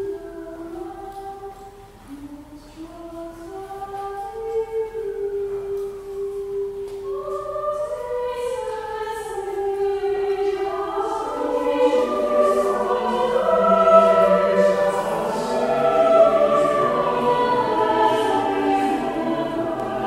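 A choir singing slow, held notes: a few voices at first, swelling into fuller many-part harmony and growing louder from about eight seconds in.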